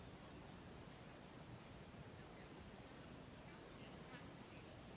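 Faint, steady high-pitched chorus of insects such as crickets or cicadas, over a low outdoor background hiss.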